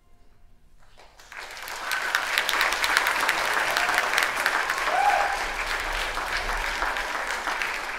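Theatre audience applauding as a dance performance ends. The clapping starts about a second in, quickly swells, and stays full, with one short call from the audience about five seconds in.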